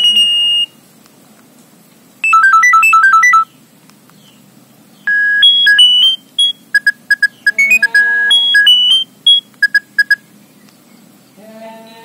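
Nokia 6610 mobile phone playing short electronic tone previews, one after another, as the menu is scrolled through its tone types. One tone ends just after the start, a quick run of beeps follows about two seconds in, a longer stop-start beeping melody plays from about five to ten seconds in, and another tone begins near the end.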